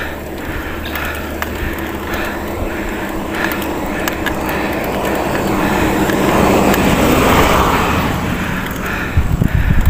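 Mountain bike rolling uphill on a concrete road: steady tyre and road noise with wind on the handlebar-mounted microphone. A louder rushing noise swells through the middle and fades near the end.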